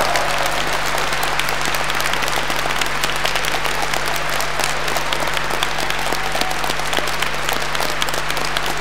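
A large crowd applauding steadily, with many hands clapping at once.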